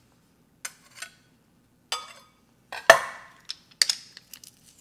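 Metal garlic press being squeezed and worked by hand, giving a handful of sharp separate clicks and clacks, the loudest about three seconds in.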